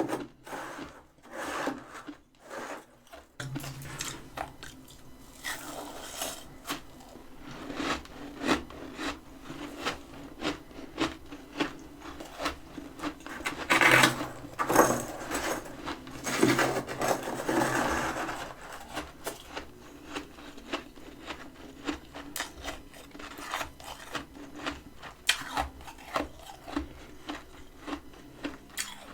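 Freezer frost being scraped with quick, repeated rasping strokes, with louder scraping bursts about halfway through.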